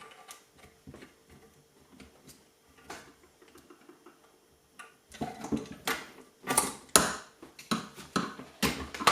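Steel washers, nut and threaded bar clinking and knocking as they are fitted together by hand. Faint ticks at first, then from about five seconds in a quick run of sharp metallic clinks and knocks.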